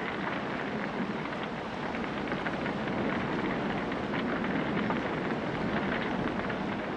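Fire hoses spraying water onto burning wreckage, with the fire crackling: a steady rushing hiss flecked with small crackles.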